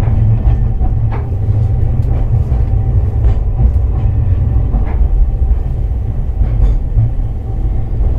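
Hakodate City Tram 8000-series streetcar running, heard from inside the car: a steady low rumble of wheels and motors with scattered clicks from the rails.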